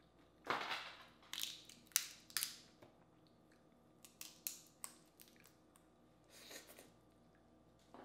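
Boiled crawfish shell being cracked and peeled apart by hand: a run of sharp cracks and crunches, loudest in the first three seconds, then smaller snaps and a softer crackle near the end.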